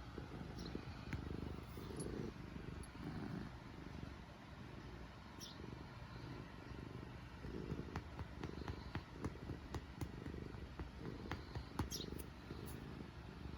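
Black cat purring close up, the low rumble swelling and easing in pulses with its breathing, with a few faint clicks.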